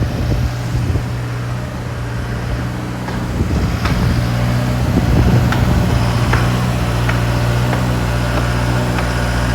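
An engine running steadily with a low hum, with a few light clicks scattered through it.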